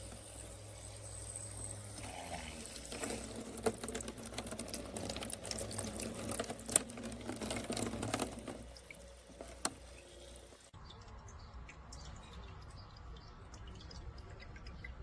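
Water splashing and pouring in a small pet water-fountain bowl while its submersible pump and tubing are handled, with a few sharp clicks and knocks. It gets louder about two seconds in and settles down around the two-thirds mark.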